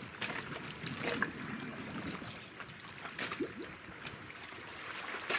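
Small waves lapping at the water's edge: a low, steady wash broken by irregular little splashes.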